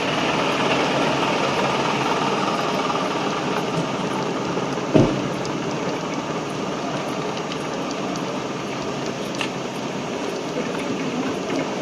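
Steady city-street din of vehicle engines running, with one brief thump about five seconds in.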